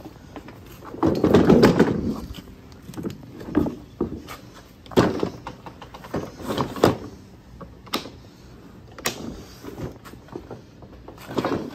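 Plastic body and wheels of a SKIL PWRCORE 40 cordless lawn mower clunking and scraping on a concrete floor as it is handled and moved. A longer rumbling scrape comes about a second in, then a string of sharp knocks.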